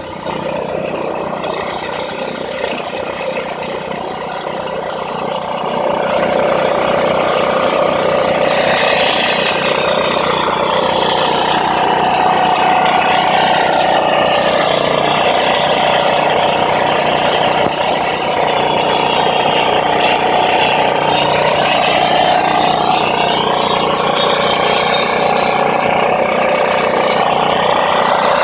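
A large engine running steadily, with many pitch lines drifting slowly up and down under a heavy rushing noise.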